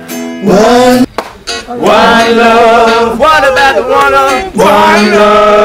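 A man singing long, held notes that slide in pitch, with an acoustic guitar accompanying him.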